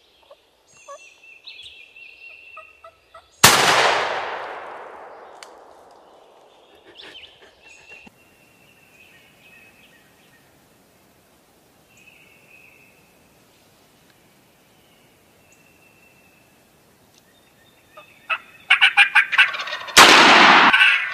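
A wild turkey gobbling, a rapid rattling call near the end, with fainter calls in between. Two loud sudden bangs cut in, one about three seconds in that dies away slowly and another near the end.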